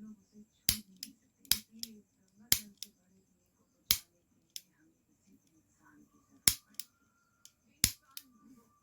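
Toy pistol firing: six sharp snaps at irregular intervals, most followed a moment later by a fainter click.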